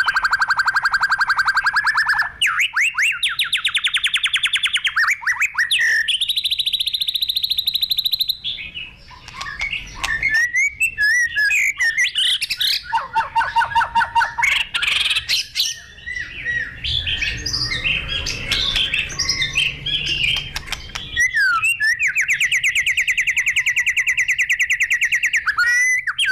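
White-rumped shama singing energetically: long, very fast trills of repeated notes, each trill held at one pitch and the next pitched higher. Midway comes a stretch of varied quick whistles and chatter, and another long trill sets in near the end.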